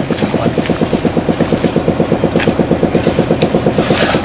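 A small engine running steadily at idle nearby, with a fast, even pulse, plus a few short knocks from handling near the middle and end.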